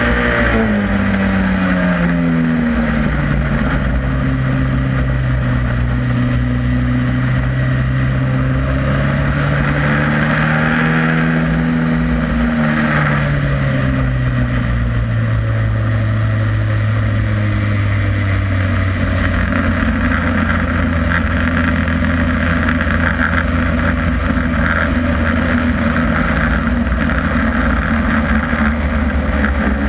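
Superstox stock car engine heard from on board during a race, its note rising and falling with the throttle. In the second half it drops into a lower, steady drone.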